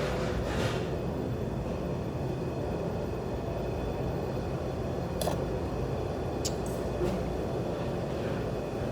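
Big Air industrial ceiling fan running steadily on speed 4: an even rush of moving air over a low rumble, with a couple of faint clicks about five and six seconds in.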